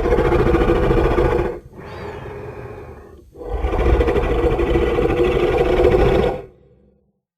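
Tyrannosaurus rex roar sound effect: a long roar, a quieter stretch, then a second long roar that fades out about six and a half seconds in.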